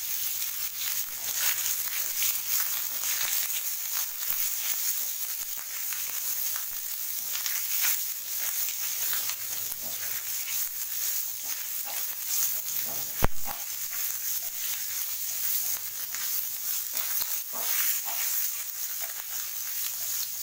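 Paneer cubes shallow-frying in hot oil in a non-stick pan: a steady sizzle and crackle, stirred and turned with a spatula in the second half. One sharp knock about thirteen seconds in.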